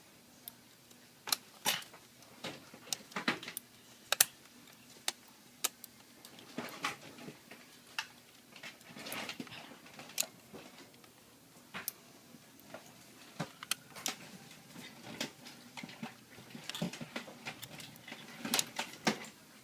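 Irregular small clicks, taps and brief scrapes of hands and tools handling the Samsung Series 7 laptop's internal parts and cables during reassembly.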